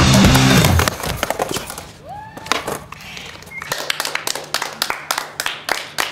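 Background music stops about a second in. A few people then clap their hands, loosely at first and then in a steady run of about three claps a second, with a brief voice in between.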